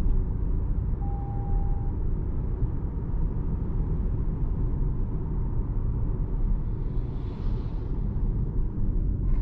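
Cabin noise of a 2026 Toyota RAV4 2.5-litre hybrid driving at speed: a steady low rumble of road, tyre and drivetrain noise. A short steady tone sounds once about a second in.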